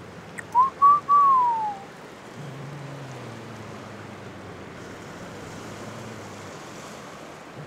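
A person whistles three notes: two short ones, then a longer note that slides down in pitch. A steady wash of surf runs underneath.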